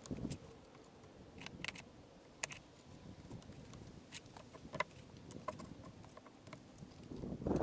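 Irregular light clicks and taps, spaced unevenly, over a faint background.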